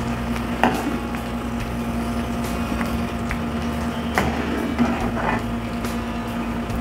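Hot mustard oil with garlic and panch phoron bubbling and sizzling in a frying pan, with a few light scrapes of a metal ladle, over a steady mechanical hum.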